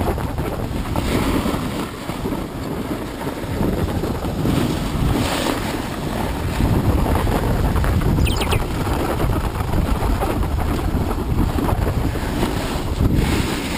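Wind rushing over the action camera's microphone, mixed with a snowboard sliding and scraping over groomed snow during a downhill run.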